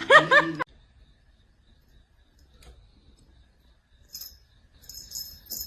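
A short pitched call at the very start, then near quiet, then a run of light, high-pitched clicks from about four seconds in.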